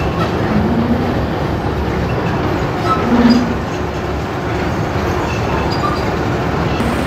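Small cross-river ferry under way: its engine running steadily, mixed with the rush of water against the hull.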